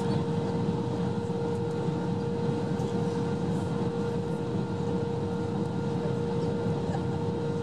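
Steady cabin noise inside an Airbus A321 in flight: a low rumble of engines and airflow with a constant whine running through it.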